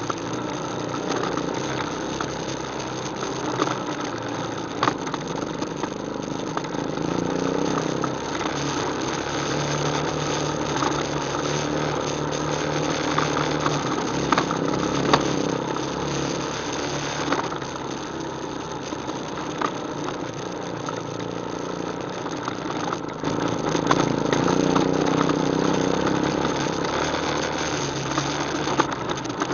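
ATV engine running steadily as the quad moves along, getting louder for a stretch in the first half and again near the end, with scattered knocks and rattles.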